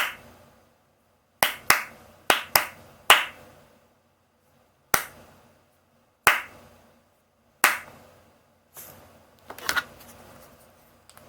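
A series of sharp finger snaps, about nine, irregularly spaced and some in quick pairs, followed near the end by a short, rougher scuffling noise.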